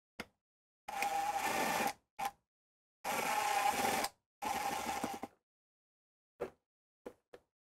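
Cordless drill driving screws into a wood panel: three runs of about a second each with a steady motor whine. A few short clicks come between and after the runs.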